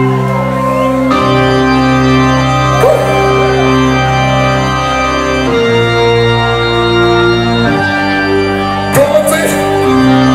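Electronic dance music with sustained organ-like synth chords that change every two seconds or so, with a few short sharp noises about nine seconds in.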